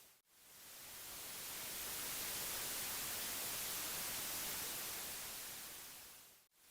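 Static hiss with no broadcast signal behind it: dead air after the transmission breaks off. It swells up in the first couple of seconds, holds steady, and fades away near the end.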